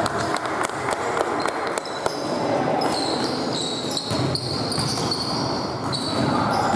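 Basketball game play: a ball bouncing repeatedly on a hard court, with short high squeaks and a constant background haze.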